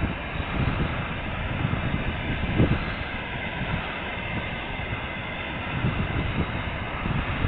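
Freight train of dump cars hauled by a 2M62 diesel locomotive rumbling past steadily, with wind buffeting the microphone in uneven low thumps.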